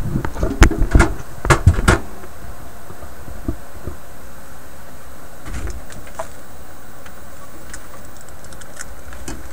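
Several loud knocks and thumps in the first two seconds as the wooden record-player cabinet is handled and moved, then a few faint clicks over a steady background hiss.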